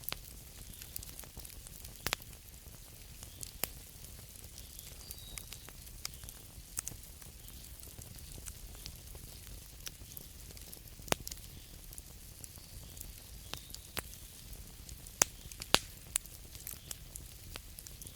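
Campfire crackling: irregular sharp pops and snaps over a steady low rumble and hiss, with two louder snaps close together late on.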